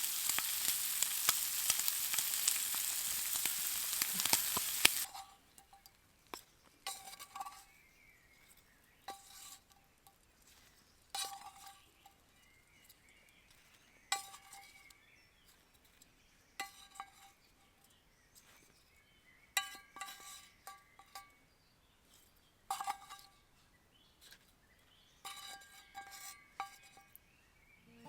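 Food frying in a pan over a wood fire, sizzling loudly for about five seconds and then cutting off suddenly. After that come scattered metal clinks and scrapes of a utensil against the pan, some with a short ring.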